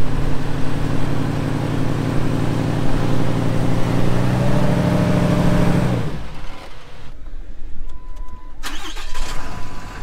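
The Morrvair off-road recovery rig's engine runs hard under load as it strains on the tow ropes against a pickup sunk in lake mud. Its pitch creeps up, then the engine falls off suddenly about six seconds in. The stuck truck is not budging.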